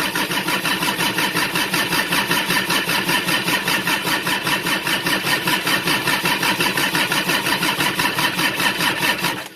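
Reefer unit's diesel engine cranking over on its starter without catching, a steady, rapidly pulsing chug that cuts off abruptly near the end. Failing to start after running out of fuel, a sign of air still in the fuel system.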